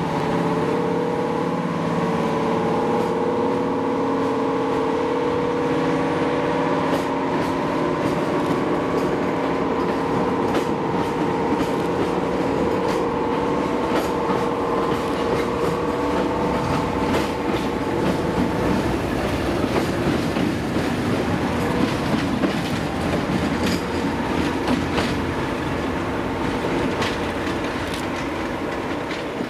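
A diesel-hauled passenger train passing and running away. A steady diesel engine drone fades out about two-thirds of the way through, and the coach wheels keep clicking over the rail joints.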